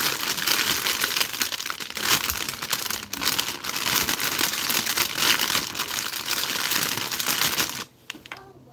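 Close-up crinkly rustling and crackling of something being handled right at the microphone, irregular and continuous, cutting off suddenly near the end.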